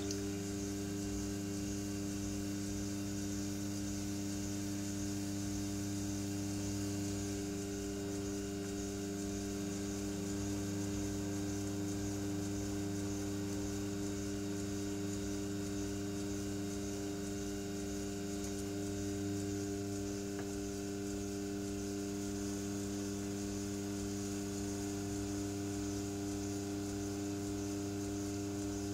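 Electric potter's wheel running, giving a steady low electrical hum made of several even tones that does not change.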